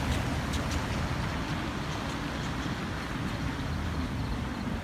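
Steady road traffic noise from passing cars, a low even rumble, with a few light clicks in the first second.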